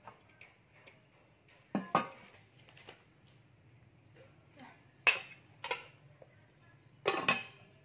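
A glass pot lid knocking and clinking against a metal cooking pot as it is lifted off and set back on: several sharp clanks, about two seconds in, twice around five seconds, and a cluster near the end.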